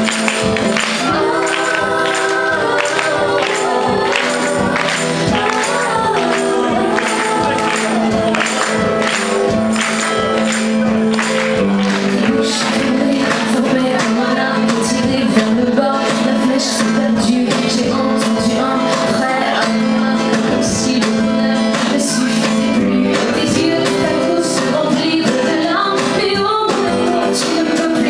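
Live pop song: a woman sings over a band while a tambourine keeps a steady beat.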